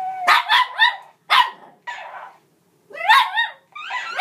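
Shih Tzu puppy barking at a sock monkey toy: short, high yappy barks in quick bursts of two or three, with a few single barks between them.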